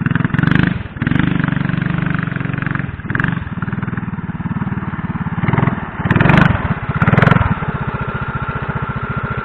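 Mini bike's small single-cylinder engine running loud through a header exhaust, its firing pulses steady, and revved up in short bursts several times, mostly in the second half.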